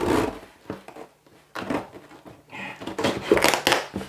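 Cardboard shipping box being cut and torn open with a hand tool: a run of rough scraping and ripping strokes, quickest near the end as the top flap is pulled up.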